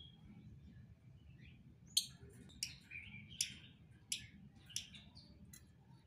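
Lovebirds giving a run of about six short, sharp chirps, one every two-thirds of a second or so, starting about two seconds in.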